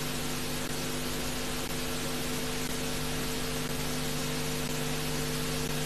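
Steady hiss with an even low hum under it, unchanging throughout: the background noise of an old film soundtrack.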